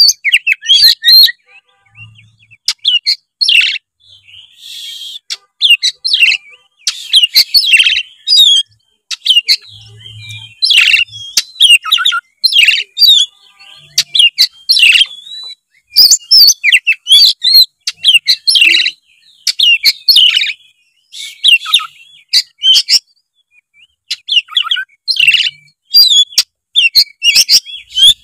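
Oriental magpie-robin in full, loud song: quick runs of varied whistles and chirps in short bursts, with brief pauses between phrases.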